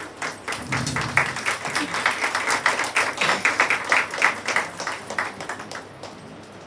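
Audience applauding: dense, irregular clapping that swells within the first second and dies away about six seconds in.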